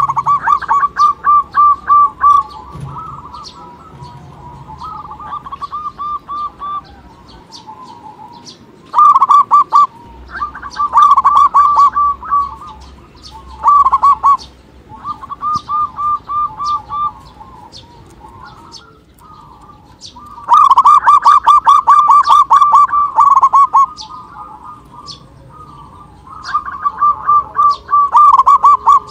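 Zebra dove (perkutut) song: bursts of rapid, staccato cooing notes, each phrase lasting one to three seconds. Loud phrases alternate with fainter ones.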